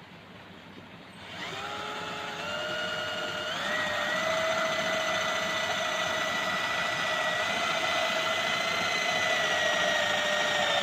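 Electric drill motor starting up with a whine that steps up in pitch twice over its first two seconds, then runs at a steady high speed.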